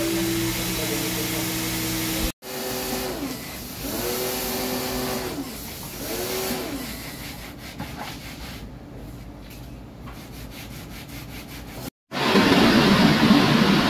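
A canister vacuum runs with its nozzle held against a mattress. Then comes rubbing on the mattress fabric, with a whine that rises and falls three times. About twelve seconds in, a large carpet-drying blower (air mover) runs loudly as a steady rush of air.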